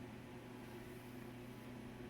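Room tone: a steady low hum with a faint hiss, and no other sound.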